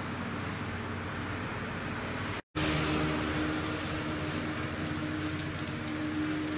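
Steady engine hum with open-air background noise. It cuts out for an instant about two and a half seconds in, then returns a little louder with a steady droning tone.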